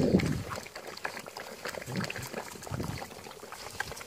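A litter of puppies and adult dogs eating together from one pile of food: many small wet chewing and smacking sounds, with a louder low sound right at the start.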